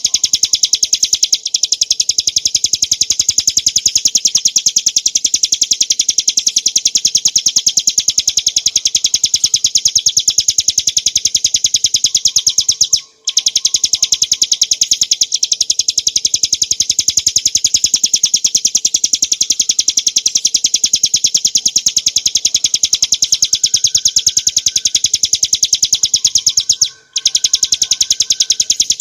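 Ciblek gunung, a small prinia, singing a rapid, continuous high-pitched rattling trill. The trill breaks off briefly about 13 seconds in and again near the end.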